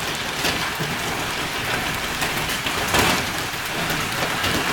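Hailstones pelting the car, heard from inside the cabin: a dense, steady clatter of many small impacts, with one louder hit about three seconds in.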